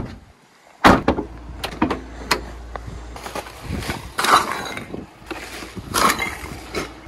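Full plastic rubbish bags being handled and dropped onto a kerbside pile: a series of separate thuds with crinkling plastic.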